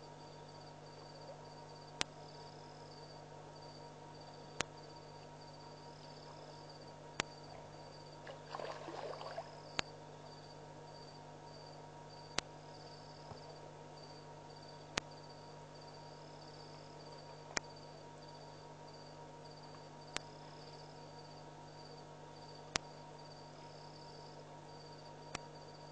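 Crickets chirping steadily at night in a fast pulsed high trill, over a steady low hum. Sharp clicks come at an even pace, about one every two and a half seconds, and a brief rustling noise rises about nine seconds in.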